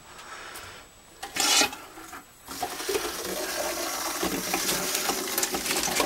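Motorhome kitchen faucet opened to bleed air from the freshly pressurised fresh-water line: a short loud burst about a second and a half in, then water running steadily into the stainless steel sink from about two and a half seconds in.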